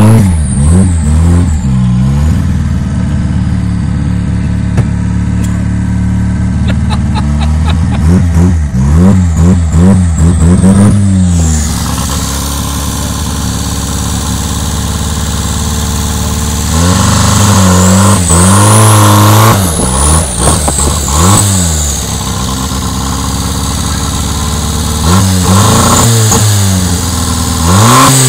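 Turbocharged, carburetted Ford Fiesta engine revving up and falling back several times while driving, heard from inside the car, with a high turbo whistle that rises and falls with the revs. The occupants take the revs flaring to be a clutch that is not biting properly.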